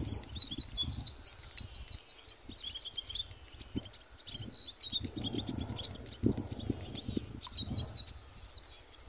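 Irregular footsteps and grass rustling, with handling bumps on the microphone, as someone moves along a grassy bank. A bird's thin, high chirping trill runs faintly behind it through the first few seconds and again near the end.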